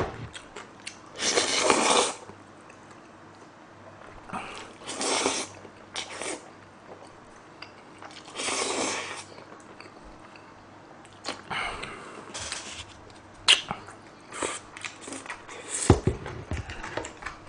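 Jjajangmyeon noodles slurped off chopsticks, about four long slurps a few seconds apart, with wet chewing and mouth clicks between them.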